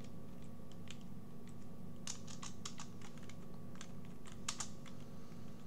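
Computer keyboard typing: scattered keystrokes at first, then quicker runs of keys from about two seconds in, as lines of code are deleted in a text editor.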